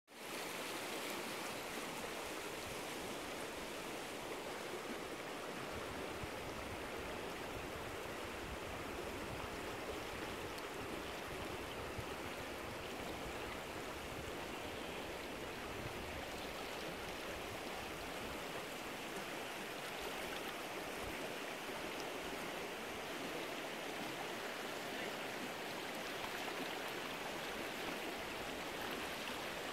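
Wide, shallow river flowing fast over a gravel bed: a steady rush of moving water with no breaks or changes.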